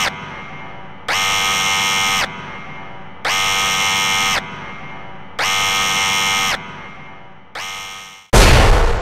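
Electronic buzzer tones sound about every two seconds, each held about a second, the last one shorter. Near the end a loud burst like an explosion comes in, the loudest sound here, and fades away.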